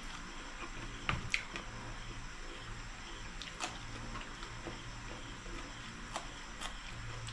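Close-up mouth sounds of eating with the hands: wet lip smacks and finger sucking, with a few sharp clicks, the loudest about a second in and others around the middle and near the end, over a faint low hum.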